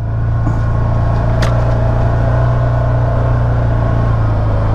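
Can-Am Maverick Sport 1000's V-twin engine running steadily at low speed as the side-by-side crawls over rocks, with one sharp knock about a second and a half in.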